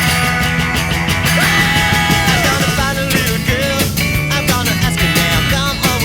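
Rock music soundtrack.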